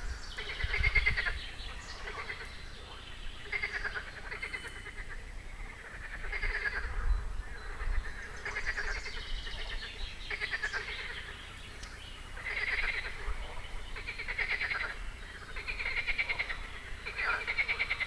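A chorus of frogs calling from the water: repeated pulsed croaks, each about a second long, following one another every second or two, with several voices overlapping.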